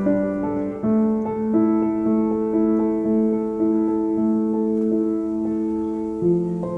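Background music: a slow piano melody with sustained notes.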